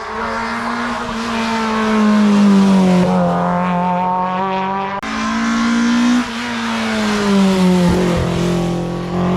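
Race car engines at high revs on a hill climb, each note sliding down in pitch as the car goes past. About five seconds in the sound cuts to another car doing the same.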